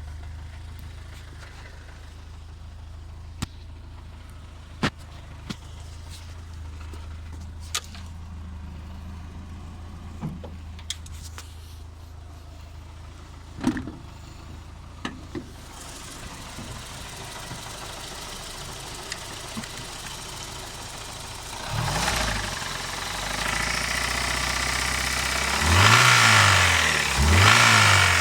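BMW E36 318i's M40B18 1.8-litre four-cylinder engine running with a knock that the owner suspects is a spun bearing; it idles with a few sharp clicks, gets louder about three-quarters of the way in, and near the end is revved up and down several times in a row.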